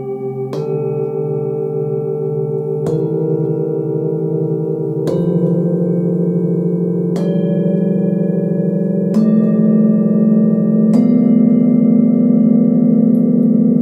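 Hand-hammered Nepalese singing bowls from a seven-note set struck one after another with a padded mallet, six strikes about two seconds apart. Each bowl is left ringing, so the tones pile up, and each new strike sounds a higher bowl as the player goes up the scale.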